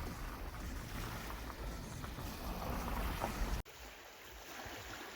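Wind rumbling on the microphone over seaside ambience. It cuts off abruptly about three and a half seconds in, giving way to a much quieter background.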